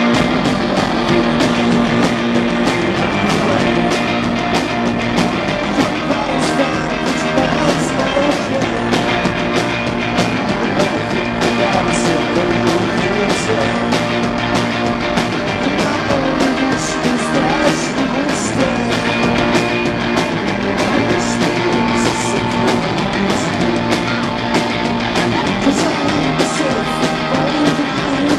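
Live rock band playing: distorted electric guitars over drums with a steady beat of cymbal hits.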